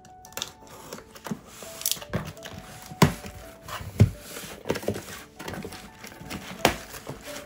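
A cardboard shipping box being opened by hand: the packing tape is slit with a pen and the flaps are pulled open, with rustling, scraping and a few cardboard thumps, the loudest about three and four seconds in.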